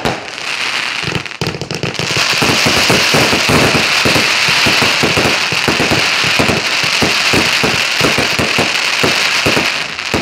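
Multi-shot firework cake firing rapidly: a few separate bangs, then from about a second and a half in a fast string of shots over a continuous crackling hiss of burning stars.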